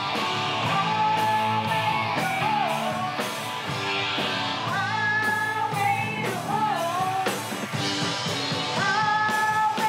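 Rock band playing: electric guitars strumming chords under a sung melody with long held, bending notes.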